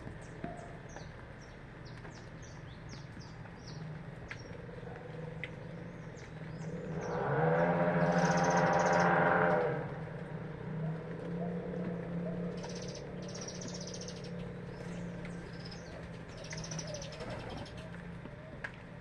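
Small birds chirping over and over in quick, short, high chirps. Midway a loud, steady droning tone with a rich buzz swells up and holds for about three seconds, then stops.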